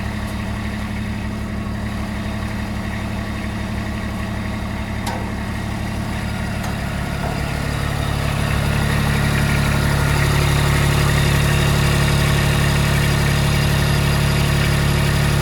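Kubota B26 backhoe's diesel engine running at idle, then throttled up about six to nine seconds in and held at a higher, louder speed.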